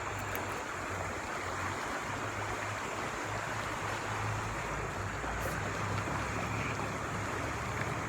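Shallow, fast-moving river water rushing steadily over rocks.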